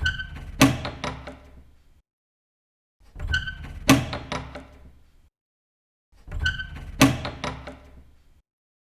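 A door's latch and handle clicking, then a sharp bang of the door about half a second later, with a rattle trailing off. The same door sound repeats three times, about three seconds apart.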